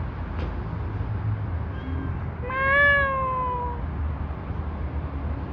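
A cat meowing: one long meow about halfway through, rising slightly in pitch and then sliding down, after a faint short one, over a steady low hum.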